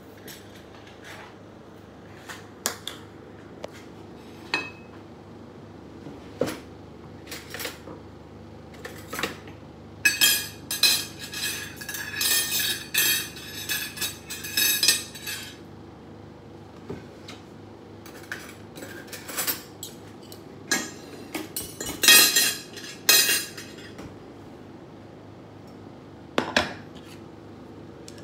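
Dishes and cutlery clinking on a table: scattered single clinks, with two longer spells of rapid ringing clatter about ten seconds in and again a little past twenty seconds.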